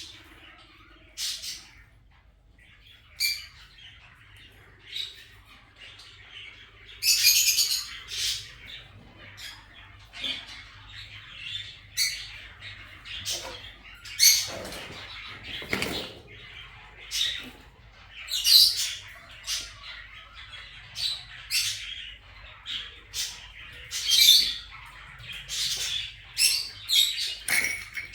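Kakariki parakeets calling in short, sharp, high chirps and squawks, coming irregularly every second or so, with a brief lower rustling sound about midway.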